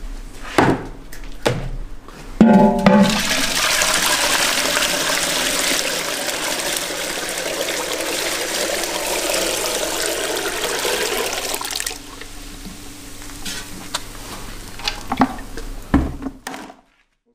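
Whey poured from a large pot through a wire-mesh strainer into an aluminium stockpot: a loud, steady gush that lasts about nine seconds. Metal pots knock and clank just before it starts and again after it stops.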